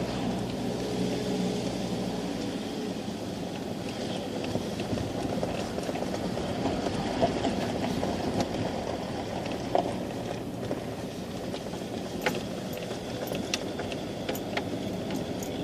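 Steady engine and tyre noise of a car heard from inside the cabin while driving; the engine hum eases about two seconds in, and small clicks and knocks come and go in the second half.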